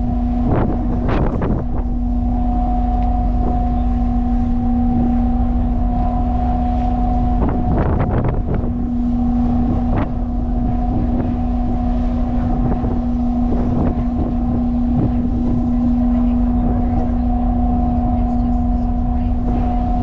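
Ship's machinery droning steadily with a constant low hum, over a low rumble of wind and sea. A few short knocks come in the first second and again around eight and ten seconds in.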